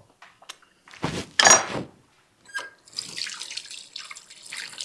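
Water running steadily from a kitchen tap into a sink, starting about three seconds in, after two loud, brief noisy sounds around a second in.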